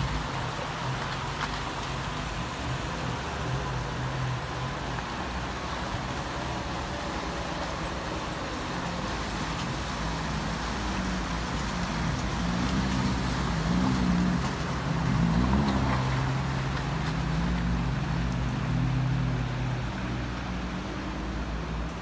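Daihatsu Feroza 4x4's engine running as it fords a shallow river, with water splashing around the tyres. The engine grows louder and its pitch wavers about halfway through as it is given more throttle.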